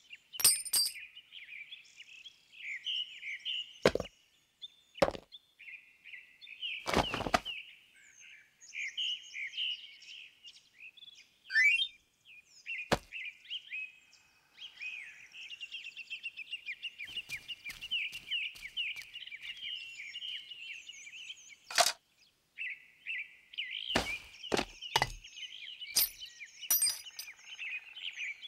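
Songbirds chirping and twittering without a break, with scattered sharp knocks and cracks, about ten of them, one longer and rasping about seven seconds in.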